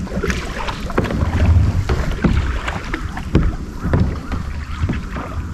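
Kayak paddle blades dipping and pulling through calm water in repeated strokes, each a short splash and trickle of drips, over a low rumble.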